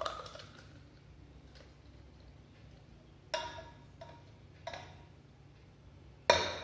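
A few sharp glassy clinks, irregularly spaced with the loudest near the end, as a steel tumbler of chilled, slushy milk-and-water mix is tipped and poured into a drinking glass. The clinks come from the tumbler's rim and icy chunks knocking against the glass.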